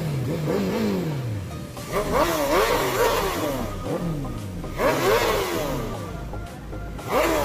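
Superbike engines, Suzuki Hayabusas among them, revved in sharp throttle blips while standing still. The pitch repeatedly rises and falls back, with three big loud rev bursts about three seconds apart.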